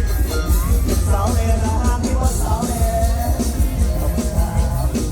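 Loud live mor lam band music: a heavy bass-and-drum beat under a melodic line, with a voice singing.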